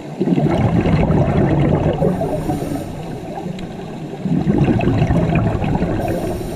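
Scuba regulator exhaust underwater: a diver breathing out through a regulator, the bubbles gurgling. There are two long exhalations, the first starting just after the start and the second about four seconds in, with a quieter pause for the in-breath between them.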